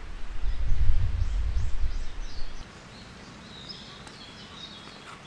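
A low rumble for the first two and a half seconds that cuts off suddenly, then a quiet outdoor background with small birds chirping.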